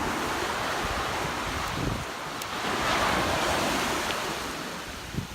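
Ocean surf breaking on a beach, the wash swelling to a peak about three seconds in and then fading, with wind buffeting the microphone.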